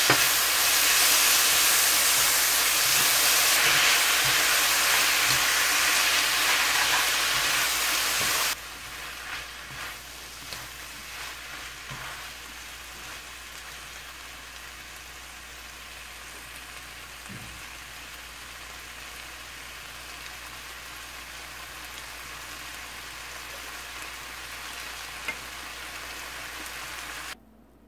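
Stir-fry of cabbage, onion and carrot strips with udon noodles sizzling in a hot wok as it is stirred. The sizzle is loud for about the first eight seconds, then drops suddenly to a quieter sizzle with a few light utensil knocks, and stops just before the end.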